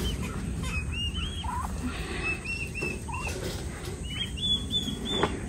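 Young poultry peeping: many short, high chirps in quick succession, over a low rumble.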